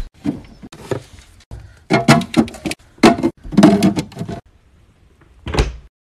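A song with a singing voice in short, broken phrases, cutting off abruptly just before the end.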